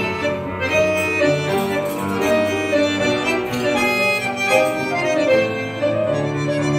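Accordion and grand piano playing an instrumental passage between the sung verses of a song.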